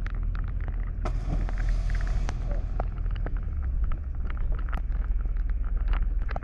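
A boat's engine running with a steady low rumble, with scattered knocks and clatter over it and a spell of hissing from about a second in that lasts roughly two seconds.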